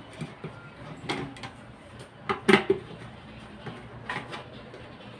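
Screwdriver turning the screws in a plastic rice cooker's housing: scattered clicks and knocks of metal on plastic, the loudest about two and a half seconds in.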